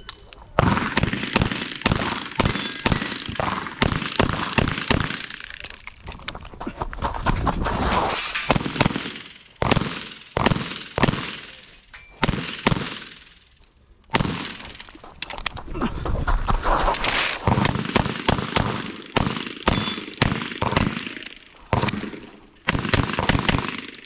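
Rapid strings of pistol shots from a custom 2011 in .357 SIG, several a second, fired at major power factor during a timed run. There are short breaks in the firing about six, ten and fourteen seconds in.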